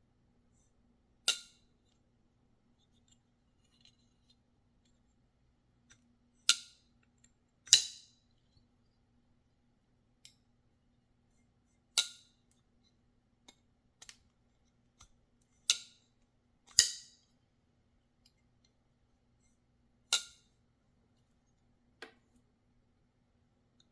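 Reate VK-Frok folding knife with titanium handle being flicked open and shut, its blade snapping into place with sharp metallic clacks. About eight loud snaps a few seconds apart, with fainter clicks between.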